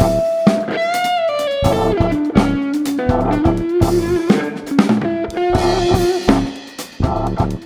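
Funk band playing an instrumental passage: an electric guitar lead that holds a note, then bends and slides between pitches, over a drum kit and bass, with a short drop in loudness near the end.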